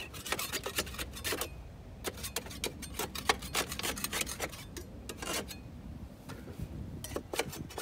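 A hand scraper scraping caked-on grass and dirt off the underside of an upturned lawn mower deck, in quick, irregular rasping strokes.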